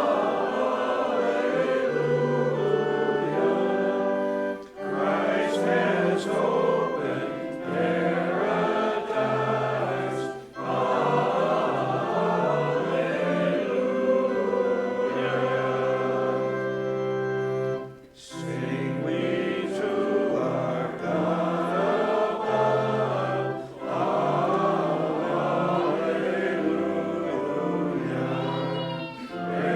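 Choir singing a hymn in long held phrases, with short breaks between them.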